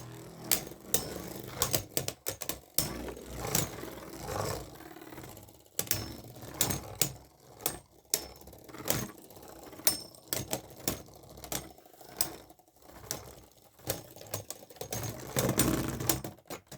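Beyblade Burst spinning tops battling in a plastic stadium: a rapid, irregular clatter of sharp clacks as the tops collide and scrape against each other and the stadium walls.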